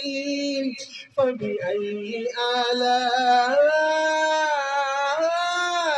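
A man chanting a devotional recitation in a melodic voice, unaccompanied, drawing out long notes that rise and fall, with a brief break about a second in.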